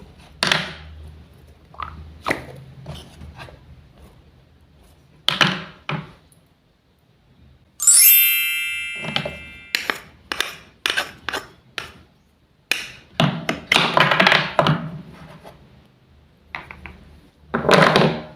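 Wooden toy fruits and vegetables being cut and handled, giving a series of short wooden knocks and taps, some in quick clusters. About eight seconds in, one bright ringing ding sounds and fades over about a second.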